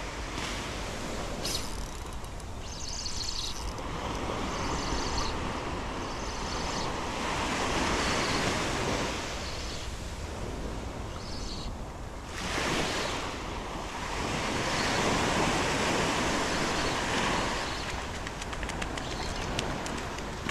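Small surf breaking and washing up a sandy beach, a steady rush that swells and eases as each wave comes in.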